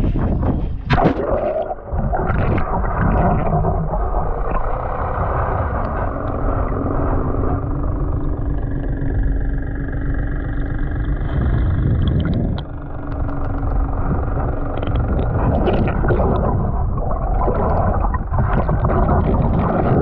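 Muffled underwater rushing and gurgling of seawater around a camera held below the surface, with a steady low drone and a few sharp knocks in the first couple of seconds.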